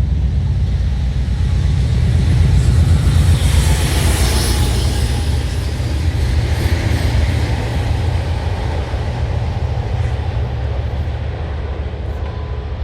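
Heavy diesel locomotives (a Class 56 and a Class 50 working top-and-tail) passing under power with a deep low rumble. The rumble is loudest about three to four seconds in, then slowly fades.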